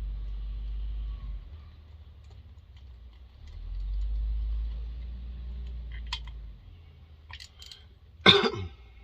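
Hand tools and chainsaw parts being handled on a workbench during a teardown: a low rumble of handling, a few light metallic clicks, then one loud knock with a brief rattle near the end as a part or tool is set down.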